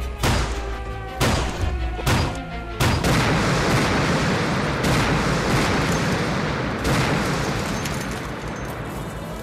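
Artillery shell explosions: about half a dozen heavy blasts in the first seven seconds over a continuous rumble, with a dramatic music score underneath.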